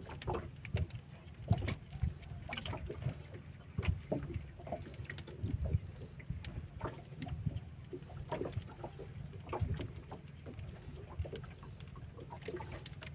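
Live blue swimming crabs being handled in a plastic tub: many irregular clicks and scrapes of shells and legs knocking against each other and the plastic, over a steady low rumble.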